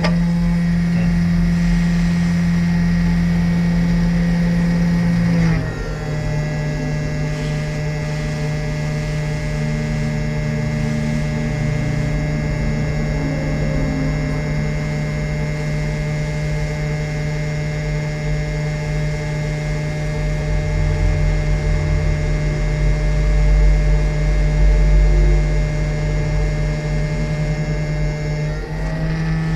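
A steady machine hum at a fixed pitch. It steps to a slightly different pitch about five seconds in and again near the end.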